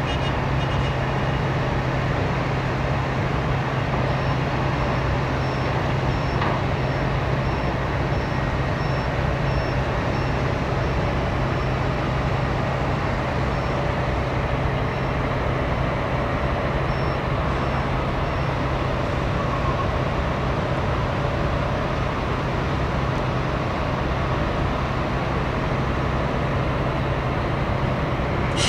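Steady mechanical drone of heavy engines or machinery, with a constant low hum under an even wash of noise. For part of it there are faint, evenly spaced high beeps about twice a second, and it ends in a short click.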